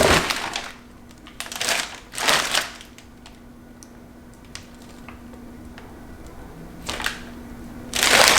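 Packaging being handled and pulled open, rustling and scraping in several short bursts with faint clicks between, over a faint steady hum.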